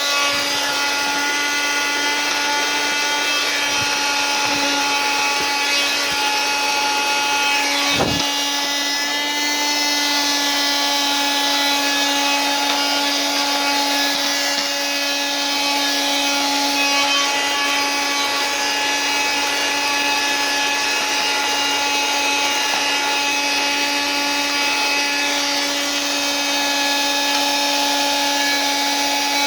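Handheld 12V car vacuum cleaner running steadily: an even motor whine over a rushing hiss, with one brief knock about eight seconds in.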